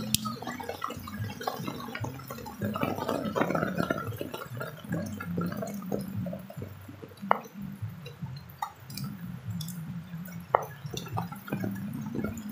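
Rain dripping and pattering in irregular scattered drops, with a few sharper single drips standing out about seven and ten seconds in.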